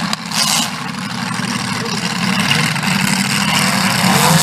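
Stock V8 demolition derby cars running and revving together, a dense steady mix of engine noise, with a brief burst of noise about half a second in.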